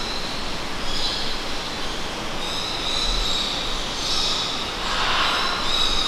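Aviary ambience: a steady rushing noise, with high, thin bird calls coming and going over it several times.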